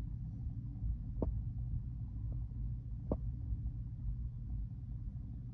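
Steady low rumble of a freight train, with two short sharp clicks about a second and about three seconds in.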